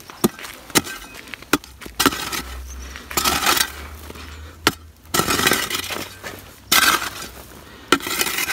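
Hoe chopping into dry, stony earth: a few sharp strikes, then longer scraping, crumbling noises as loose soil and clods are dragged.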